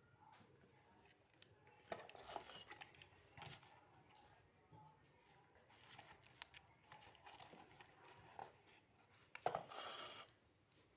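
Packaging of a hair oil being handled and unpacked: scattered rustles, taps and scrapes, with a louder rasping burst near the end.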